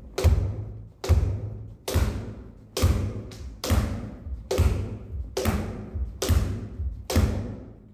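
A wooden kendo practice sword (bokuto) striking a tyre-covered striking post in a steady rhythm: nine heavy thuds about one every 0.9 s, each with a short ringing tail.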